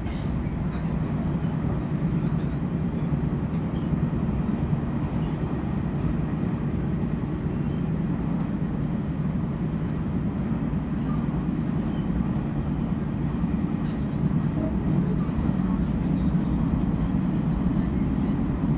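Chu-Kuang express passenger train running through at high speed, a steady rumble of wheels on rails.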